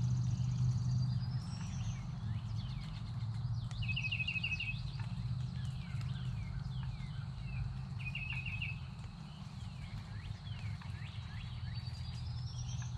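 Several songbirds singing in the woods: short rapid high trills about 4 and 8 seconds in, a rising series of notes near the start and again near the end, and scattered quick down-slurred calls, all over a steady low hum.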